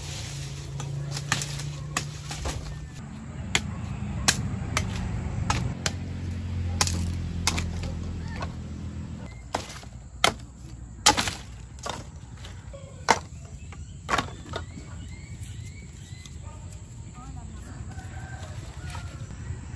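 Irregular sharp knocks and cracks of a knife chopping and stripping sugarcane stalks, the loudest strikes bunched about halfway through. Chickens cluck faintly near the end.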